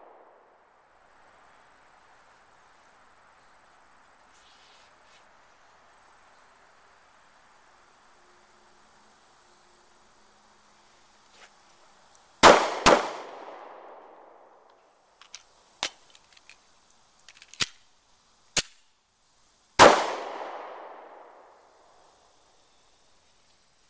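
Walther PPS 9mm pistol fired twice in quick succession about halfway through, then once more about seven seconds later, each shot echoing briefly. Several fainter sharp clicks come between them.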